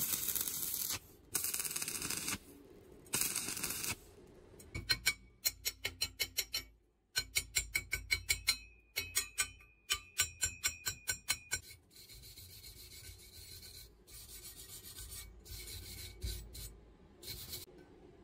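Stick-welding arc crackling in three short bursts of tack welds on thin steel pipe, followed by several seconds of quick, sharp, evenly spaced metallic ticks, about four or five a second, and then softer scraping.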